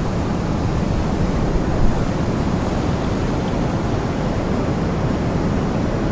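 Steady wind blowing, a low, even rush with a brief gust just before two seconds in.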